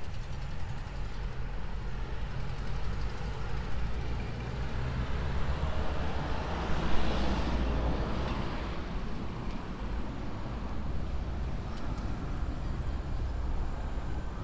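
A motor vehicle passing by on the road: its engine and tyre noise swells to a peak about halfway through, then fades away, over a steady low road rumble.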